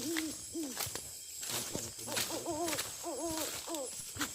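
A forest animal giving repeated short hooting calls, each note rising and falling, in quick clusters of two to four.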